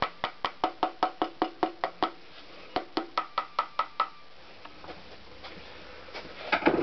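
Two quick runs of light taps, about five a second, each with a short metallic ring: a tool handle tapping on the crown of a Honda CX500 piston to drive it, new rings and all, down into the cylinder bore. The tapping stops about four seconds in.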